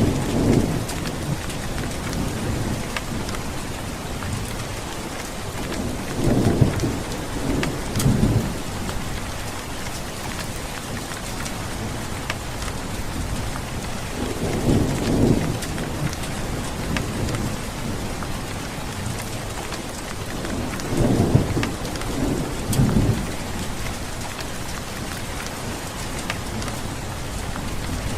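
Steady heavy rain falling, with low rumbles of thunder rising and fading every several seconds.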